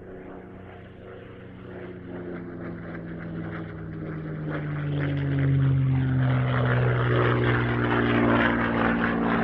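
Propeller aircraft engine growing louder as it approaches, its note dropping in pitch about halfway through as it passes.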